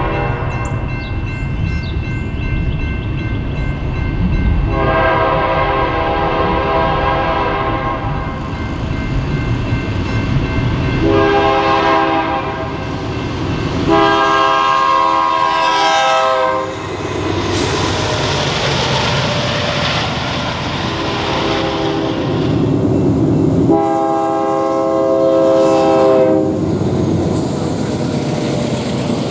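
BNSF freight locomotive's multi-note air horn sounding a series of long and short blasts as the train approaches. Under the horn, the low rumble of the diesel locomotives and their wheels on the rails grows as the engines pass near the end.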